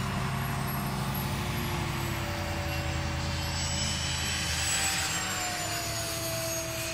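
Radio-controlled model airplanes flying, their motors whining steadily at several pitches; one passes by about four to six seconds in, its whine falling in pitch.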